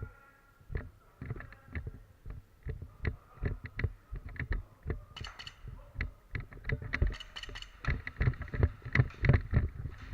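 Repeated heavy thuds and knocks, about two to three a second, getting louder in the second half, like the footfalls of a player moving with a body-worn camera.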